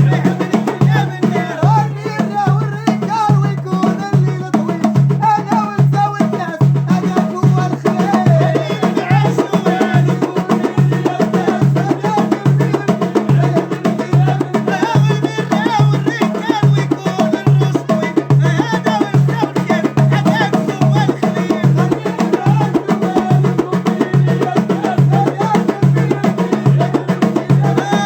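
Moroccan aita folk music: hand drums keep a steady, repeating beat under a wavering, ornamented melody.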